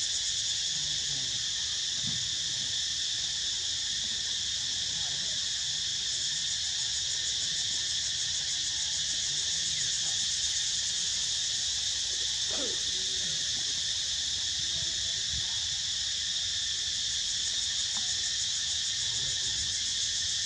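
Steady insect chorus: a continuous high-pitched buzzing drone that does not let up.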